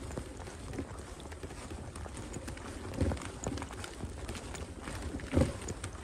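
Footsteps on a paved path, a run of light regular steps, with two heavier thumps about three seconds and five and a half seconds in.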